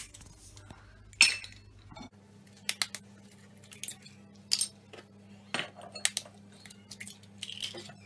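Eggs tapped on the rim of a stainless steel mixing bowl and cracked open, one after another: a string of sharp clinks and knocks, the loudest about a second in.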